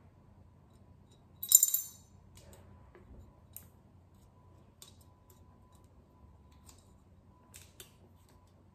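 Coins clinking inside a coin bank as it is worked, with one loud, brief metallic jingle about a second and a half in, followed by a few faint clicks.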